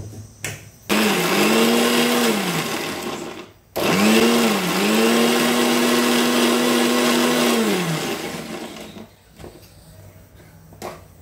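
Electric blender grinding a cucumber smoothie in two runs: a short burst of about two seconds, a brief stop, then a longer run of about four seconds, the motor's pitch climbing at each start and sliding down as it winds down.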